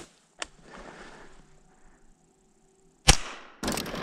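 A single sharp gunshot from a small-calibre hunting gun about three seconds in, with a short ringing tail, after a stretch of near-quiet with one faint click about half a second in.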